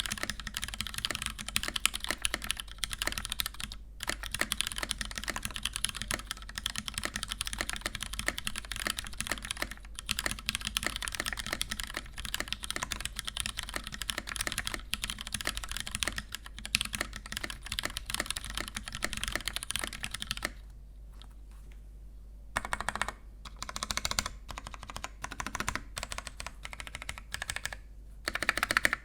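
Typing on a Westfoxtrot Cypher mechanical keyboard with lubed Gateron Milky Brown tactile switches in a polycarbonate plate, under GMK keycaps. A steady stream of keystrokes stops for about two seconds past the middle, then resumes in shorter runs.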